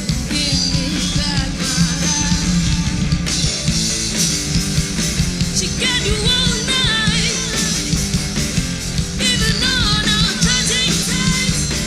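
A rock band playing live: drum kit, electric guitars and bass in a dense, loud mix, with a bending lead melody (singing or lead guitar) coming in about six seconds in and again near the end.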